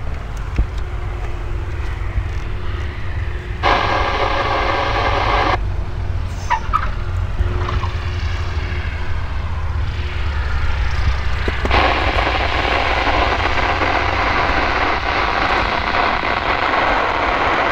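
Airband radio receiver keying open into hiss with no clear words, once for about two seconds some four seconds in and again from about twelve seconds on, each starting and stopping abruptly, over a steady low rumble.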